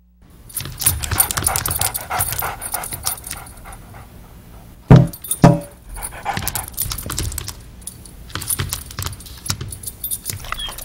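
A dog panting, with the metal tags on its collar jingling as it moves. Two loud thumps about half a second apart come near the middle.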